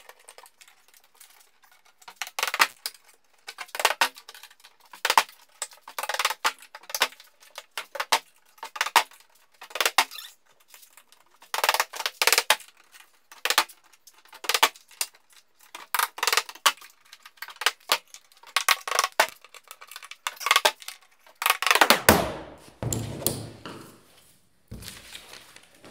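Hammer striking metal while prying open a plywood shipping crate: groups of sharp metallic taps and clinks, about one group every second or so. Near the end comes a louder, longer knock and scrape as part of the crate gives way.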